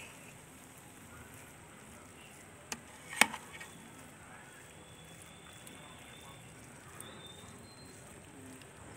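Metal spoon clinking against a metal cooking pot while spreading fried chicken over rice: two sharp clinks about three seconds in, the second louder, over a faint steady hiss.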